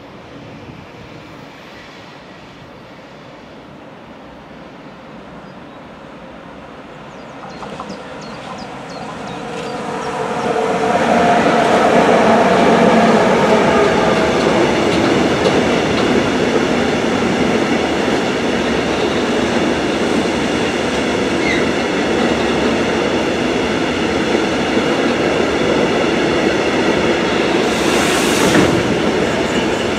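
Freight train hauled by two class 186 electric locomotives approaching and passing. It grows louder over the first ten seconds or so, then the long rake of covered hopper wagons keeps up a steady, loud rolling of steel wheels on the rails, with a brief hiss about two seconds before the end.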